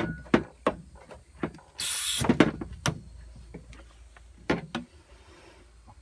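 Clicks and knocks from a car A/C refrigerant charging hose, gauge and can tap valve being handled and fitted, with a brief hiss of escaping refrigerant gas about two seconds in.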